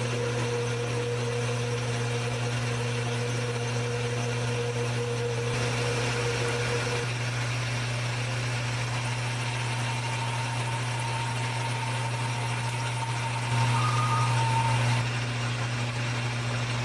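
Metal lathe running while turning aluminum: a steady motor and gear hum with a faint higher cutting tone, a little louder for a second or two near the end.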